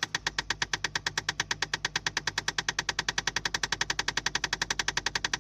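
Rapid, even clicking from under the dashboard of a 2008 Mazda 2, between the radio and the glove box, about ten clicks a second, over the low hum of the engine idling just after startup. The owner believes the clicking is a fault in the heating/ventilation system.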